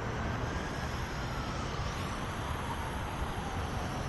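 A distant siren wailing, its pitch rising and then slowly falling, over a steady low background rumble.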